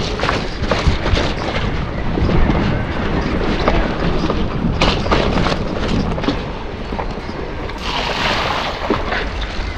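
Mountain bike being ridden over a rough trail: tyre noise with rattling and knocking over bumps, and wind rumbling on the microphone. A brighter hiss rises about eight seconds in.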